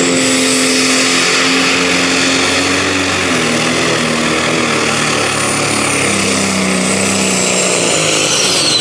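Pro Stock pulling tractor's turbocharged diesel engine running at full power under load while pulling a sled, with a high turbo whistle over the engine note. The engine note sags a little after about three seconds as it lugs down, and the whistle falls away steeply near the end.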